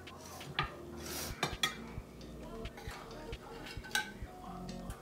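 Scattered clinks and knocks of a metal skillet and utensils against plates as cooked asparagus is served out of the pan.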